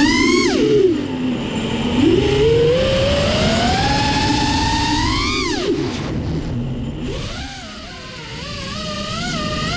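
5-inch FPV racing quad's brushless motors (TBS Grinder 2207 1850kv on 6S) and props whining, pitch climbing with throttle and dropping steeply when it is chopped, once about half a second in and again after a long climb at about five and a half seconds. Later a lower, wavering whine with quick throttle blips, rising again at the end.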